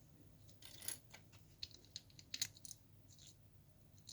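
Faint, scattered light clicks and taps of small parts being handled as the rubber vent caps are fitted back onto a lead-acid battery's cells.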